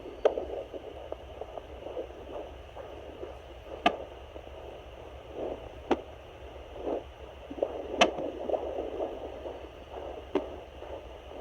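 Fetal Doppler swishing and whooshing as it picks up the unborn baby in the womb, with five sharp thumps a few seconds apart: the baby's hiccups.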